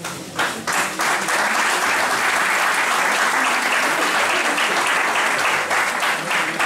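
Audience applauding: a few scattered claps that swell within about a second into steady, full applause.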